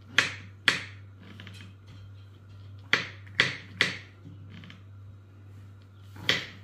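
Kitchen knife slicing mushrooms on a wooden cutting board. Each stroke ends in a sharp knock as the blade hits the board: two near the start, three close together around the middle, and one near the end.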